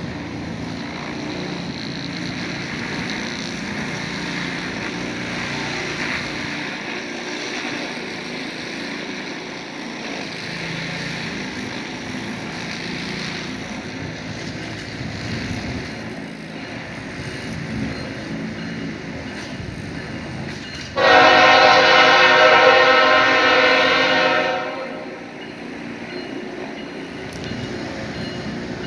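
Canadian National freight locomotive's air horn sounding one long blast of about three and a half seconds, about two-thirds of the way in, over the steady rumble of the approaching train.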